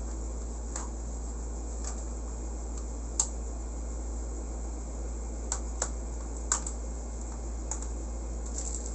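Light plastic clicks and taps, about eight scattered irregularly over several seconds, as Hot Wheels plastic track pieces and connectors are handled and fitted together, over a steady low hum.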